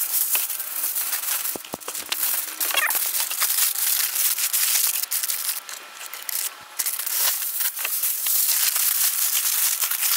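Reynolds Wrap heavy-duty aluminium foil crinkling and crumpling continuously as it is pulled from the roll and pressed by hand around a large piece of meat.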